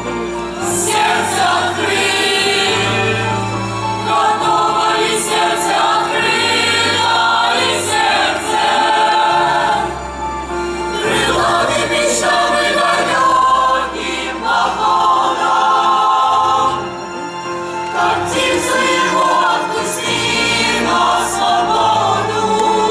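Boys' and youths' choir singing a song in sustained phrases.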